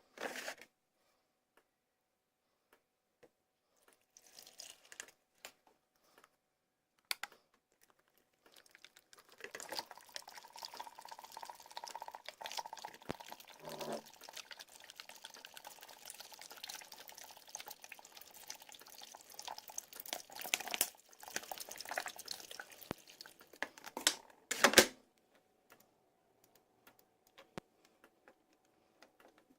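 Water running and splashing for about fifteen seconds, with scattered clicks and knocks before it and a loud knock near the end.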